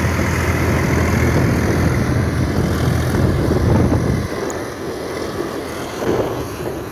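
Swaraj 855 tractor's three-cylinder diesel engine running under load, pulling a fully loaded trolley of earth. Its steady low drone drops off sharply about four seconds in, leaving it fainter.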